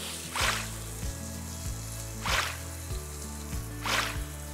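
Three short hissing bursts of water spray from a garden hose nozzle, about a second and a half to two seconds apart, over background music with a steady bass line.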